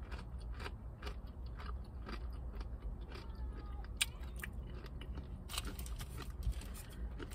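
A person chewing crunchy tortilla chips with bean dip, close to the microphone: irregular crisp crunches, the sharpest about four seconds in and again around five and a half to six seconds.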